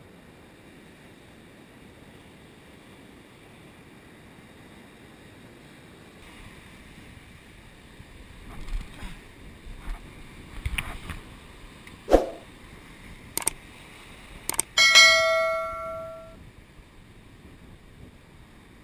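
Surf washing over a rocky shore, with a few sharp knocks in the second half and then one loud metallic clang that rings out for about a second and a half.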